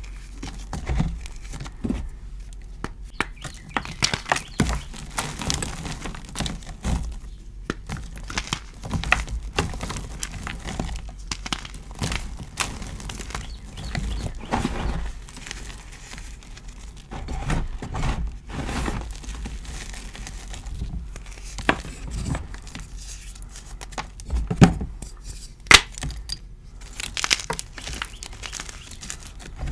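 Dyed gym chalk blocks and loose chalk powder crunching and crumbling under bare hands: a dense, irregular crackle, with a few sharp snaps of breaking chalk about three-quarters of the way in.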